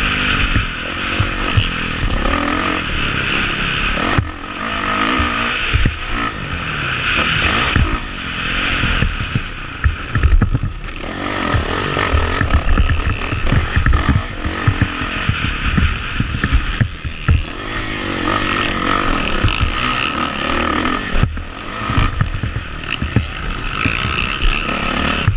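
Dirt bike engine under hard throttle, its pitch rising and falling again and again with throttle and gear changes. Low thumps and wind rumble come through on the helmet-mounted camera over the rough track.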